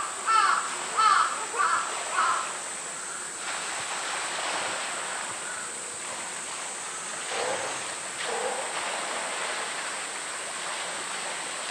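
Water splashing and streaming as a polar bear swims and hauls itself out of its pool. In the first two seconds a run of about five short, high calls, repeated every half second or so, is louder than the water.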